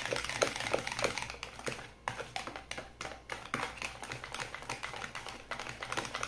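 Stand-mixer wire whisk beating a runny egg and condensed-milk mixture by hand in a plastic bowl: rapid, irregular clicks and taps of the metal wires against the bowl, with soft sloshing.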